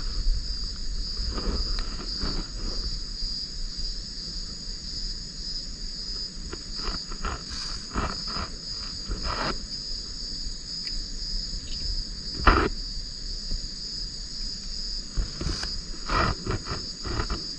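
Steady high-pitched trilling of night insects, with scattered short rustles and clicks from hands working a wet fishing net, and one sharper knock about twelve seconds in.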